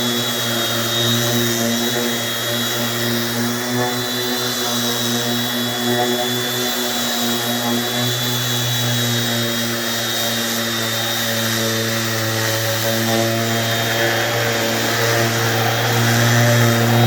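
Dewalt 20V Max cordless palm sander running steadily, a level motor hum, a little louder near the end. The sander is running again after repair.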